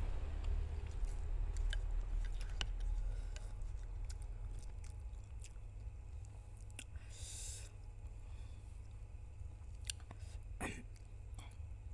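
A person chewing spicy noodles close to the microphone: scattered wet mouth clicks, with a short hiss about seven seconds in, over a steady low hum.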